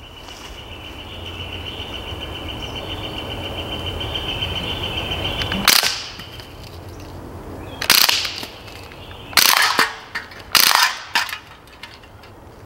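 Umarex Steel Strike CO2 BB rifle firing: a sharp shot about six seconds in, then more shots and short quick groups over the next five seconds. Before the first shot a steady hiss slowly grows louder.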